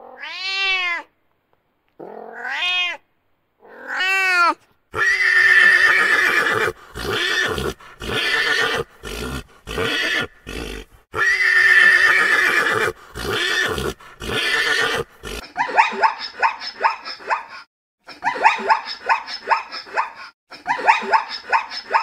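A cat meows three times. Then a pony neighs in a run of long calls, and in the last third zebras bark in fast, choppy yelps.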